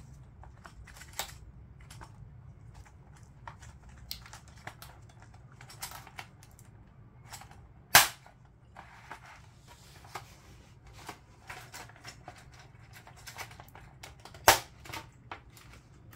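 Scattered clicks and taps of a computer keyboard's plastic case and screws being handled during disassembly, with two loud sharp snaps, one about halfway through and another some six seconds later.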